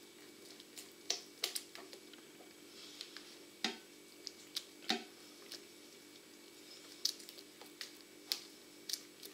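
Silicone spatula stirring wet cake batter in a glass bowl: soft squelching with irregular light clicks as the spatula knocks the bowl, over a faint steady hum.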